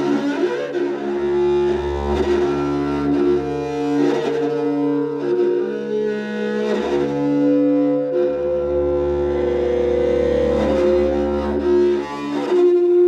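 Improvised music on bass koto and an electric guitar played flat on the lap: several sustained string tones held and overlapping like bowed strings, with a short scraping stroke every two or three seconds.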